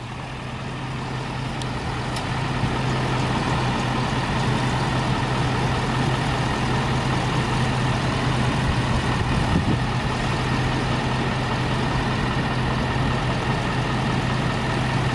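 Ford F-350 pickup truck's engine running with a steady low hum, growing louder over the first few seconds and then holding steady.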